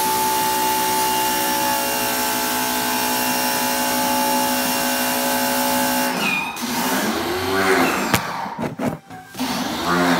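A steady motor hum with a whine over a broad hiss, like a small electric motor running, that cuts off abruptly about six seconds in. Short wavering, sliding tones follow.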